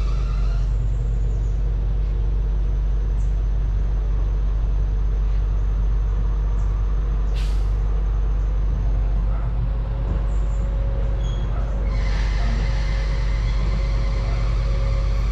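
Steady low drone of idling SRT CSR diesel-electric locomotives, with one short sharp hiss of air about halfway through, like a brake release.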